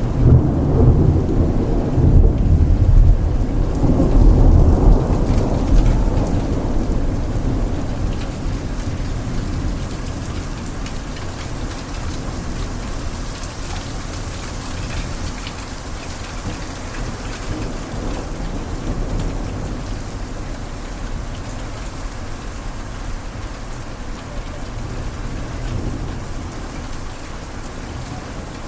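Thunderstorm: a close, heavy roll of thunder rumbles through the first several seconds and fades away, leaving steady rain falling on a surface.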